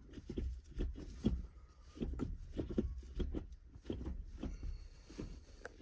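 Shift lever being worked with the new weighted shift knob: a run of irregular light clicks and knocks over a low rumble of handling.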